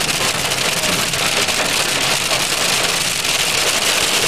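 Hail pelting the car's roof and windshield, heard from inside the cabin as a dense, steady patter of small ticks over the low hum of the moving car.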